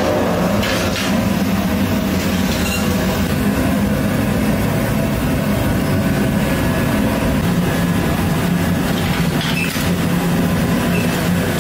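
Steady loud rumble and hiss of a commercial idli steaming cabinet and its burner running, with a couple of brief metal clinks from the idli trays being handled.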